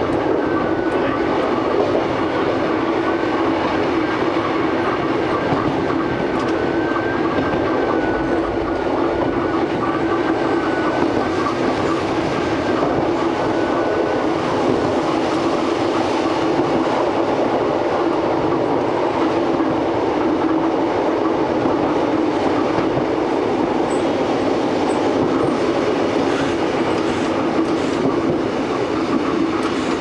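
Vintage Kotoden 1000 and 5000 series electric train running along the line, heard from inside the cab: a steady, noisy rumble with a constant hum and a thin, wavering higher whine that fades out about halfway.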